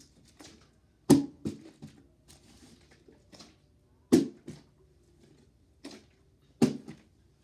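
Plastic water bottle flipped and landing on a carpeted floor, three times about two and a half seconds apart: each landing is a sharp knock followed by a weaker bounce or two as the bottle fails to stand.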